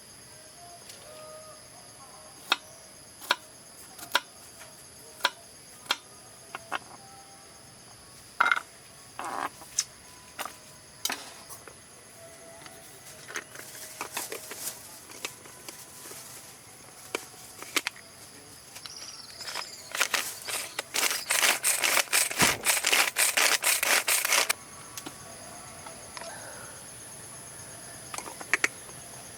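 Steady high-pitched drone of insects, with scattered sharp clicks and knocks. Past the middle comes a dense rattle of rapid clicks lasting about four seconds, which is the loudest sound here.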